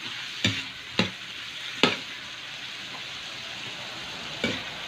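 Chicken pieces frying in a large metal wok with a steady sizzle, while a metal ladle stirs them and knocks and scrapes against the wok four times, three in the first two seconds and once near the end.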